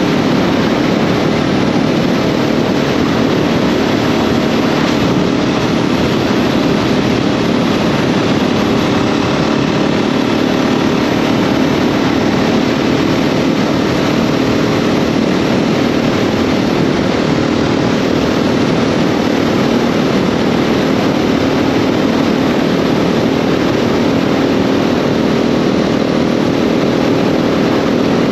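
The single-cylinder engine of an A2-restricted KTM 690 SMC R supermoto runs steadily under way, holding an even note with no clear revving up or down.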